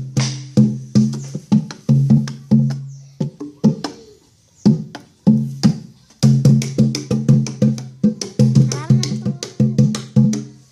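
Jaranan music from a percussion ensemble of pitched gongs and drums, playing a fast, even beat of sharp struck strokes over low ringing tones. It breaks off briefly about four seconds in, then picks up again.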